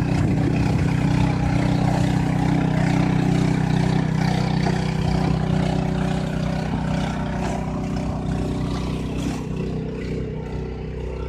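Engine of a farm machine running steadily, gradually growing quieter over the last few seconds.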